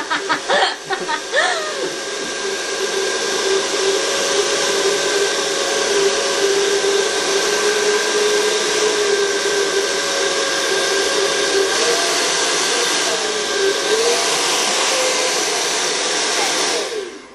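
Handheld hair dryer running steadily on hair extensions, a loud airy rush with a slightly wavering hum in it. It is switched off abruptly about a second before the end.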